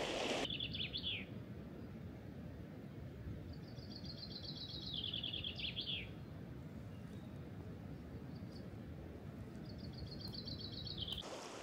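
A songbird singing three short phrases, each a quick run of high notes stepping down in pitch and ending in a flourish, over a steady low background noise.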